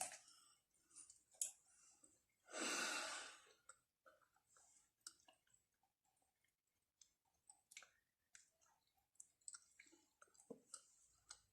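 Mostly near silence with faint, scattered mouth clicks and smacks of someone chewing, and one breathy exhale lasting about a second, roughly three seconds in.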